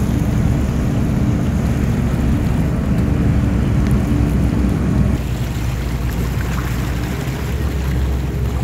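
Motorboat engine running steadily under way, a low drone; about five seconds in the hum changes and settles lower.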